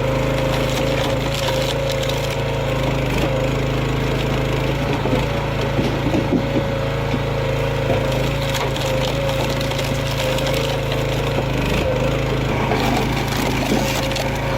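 Hydraulic firewood splitter running with a steady hum while logs crack and splinter as they are split.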